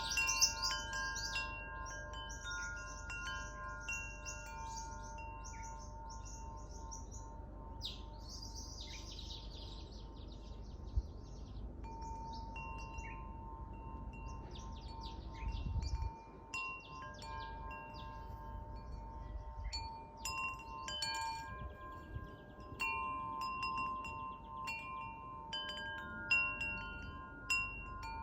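Wind chimes ringing, several tones struck over and over and left to ring on, with birds chirping in quick runs of high notes throughout.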